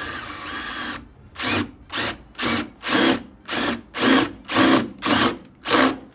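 Power drill with a step drill bit boring through a fender's sheet steel. It runs steadily for about a second, then in short regular bursts, about two a second.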